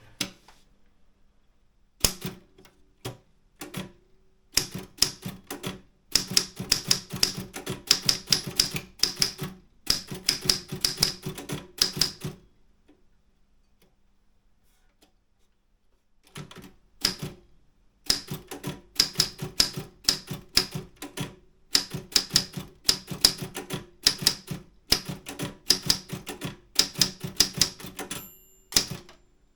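Optima M10 manual typewriter being typed on: fast runs of sharp key strikes, broken by a pause of a few seconds midway, with a short ringing tone near the end.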